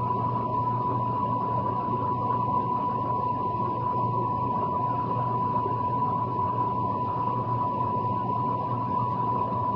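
Steady hiss with a constant high-pitched whine and a low hum, unchanging throughout.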